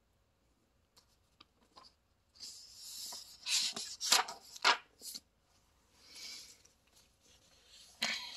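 A page of a picture book being turned by hand: paper rustling and swishing, with several sharp crackles as the page goes over. A softer brush follows, then a sharp tick near the end.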